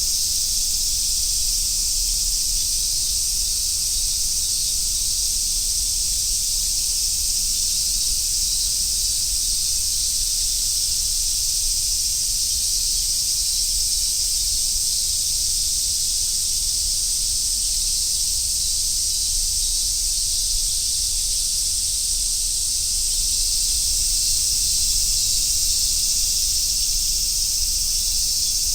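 Dense chorus of summer cicadas, a steady high-pitched shrill hiss that swells slightly about two-thirds of the way through.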